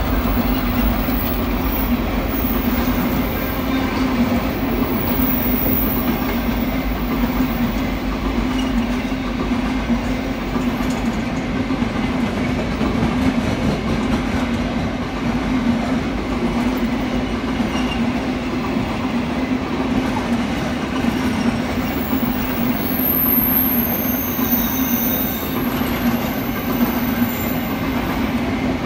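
Diesel-hauled freight train passing at speed: the trailing locomotive goes by first, then a long string of wagons rolls past in a steady, loud rumble of wheels on rail with a constant hum. The deep low end thins out about halfway through, and a few brief high-pitched wheel squeals come near the end.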